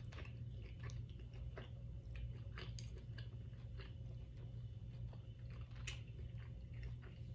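Close-miked chewing and wet mouth sounds of someone eating soft food, with scattered small irregular clicks, over a steady low hum.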